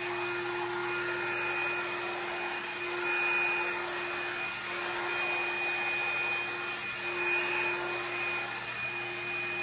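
Revlon One-Step hot air brush dryer running on its low setting: a steady motor hum and whine over rushing air, swelling briefly a few times as the brush is pulled through the hair.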